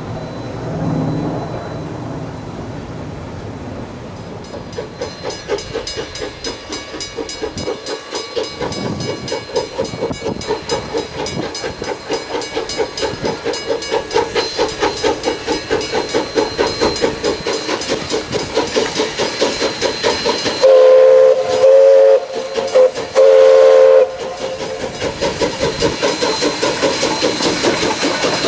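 Essex Terminal Railway No. 9, a 0-6-0 steam locomotive, working steadily with a rhythmic exhaust chuff that sets in about five seconds in. About three-quarters of the way through it blows its steam whistle in several blasts, two long with a short one between, and the beat of the passing train runs on after.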